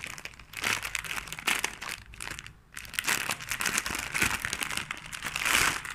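Crinkly packaging wrap being crumpled and pulled apart by hand, in irregular rustling bursts with a short lull partway through.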